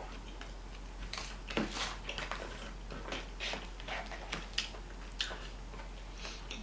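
Close-miked eating sounds from a mukbang of an In-N-Out burger and fries: irregular chewing, biting and mouth clicks over a steady low hum.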